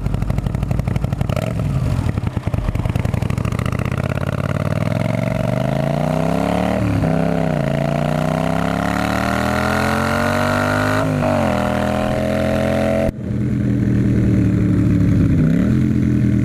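1980 Honda CX500's V-twin engine, breathing through its cut-down stock exhaust pipes and aftermarket Emgo mufflers, pulling under acceleration from the rider's seat. Its note climbs, drops at a gear change about seven seconds in, climbs again to a second shift about eleven seconds in, then settles into a steadier, lower note for the last few seconds.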